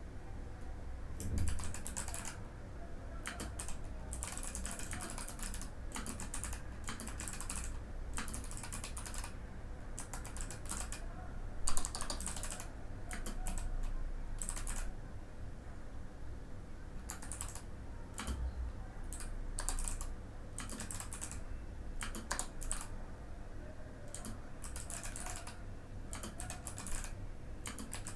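Typing on a Mikit M65 mechanical keyboard with Kailh Box White clicky switches: bursts of quick keystrokes separated by short pauses. One louder thump comes about twelve seconds in.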